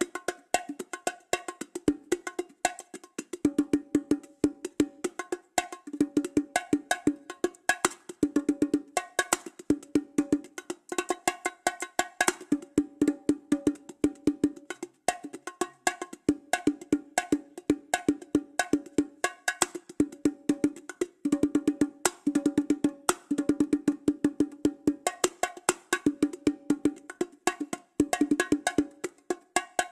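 Fisher-Price toy bongo drums cartoon sound effect: rapid pitched drum hits, many a second, going on without pause.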